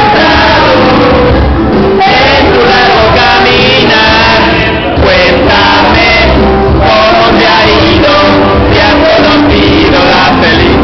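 A group of women singing together into handheld microphones, loud and amplified, over backing music.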